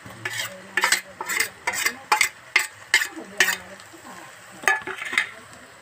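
Metal spoon scraping and clinking against a steel plate and the rim of a kadhai as ginger-garlic paste is knocked into the pan: a quick run of sharp scrapes and clinks, then two more near the end. Under them the onion and paste sizzle faintly in hot mustard oil.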